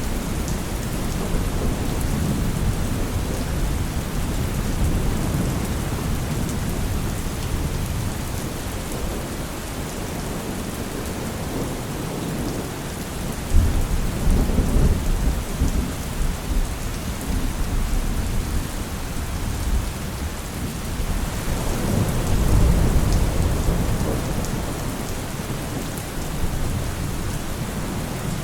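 Heavy rain falling steadily, with thunder rumbling low beneath it: one rumble starts suddenly about halfway through and a longer, louder one swells near the end.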